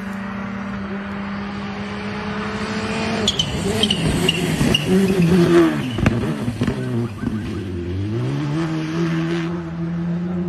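Škoda Fabia rally car's turbocharged four-cylinder engine, held at steady high revs as it approaches. From about three seconds in the revs swing up and down through gear changes and lifts, with several sharp cracks as it passes. Near the end the revs dip and climb back to a steady high note as it pulls away.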